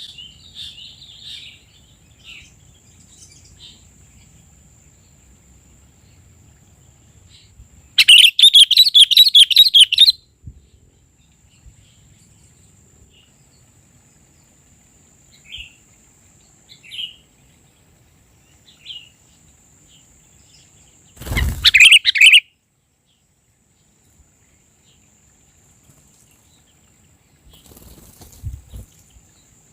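Sooty-headed bulbuls chirping, with scattered short calls and one loud two-second burst of rapid chattering notes about eight seconds in. A short loud rustle comes about two-thirds of the way through, and a faint steady high whine runs underneath.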